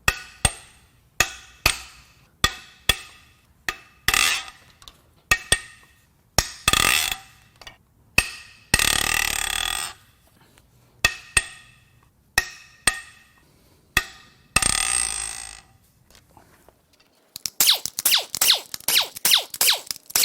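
Metal tools and parts clanking and ringing as the passenger-side cylinder head of a 4.6L DOHC V8 is unbolted: a dozen or so sharp separate clanks, a few second-long bursts of tool noise, and a quick run of rattling clicks near the end.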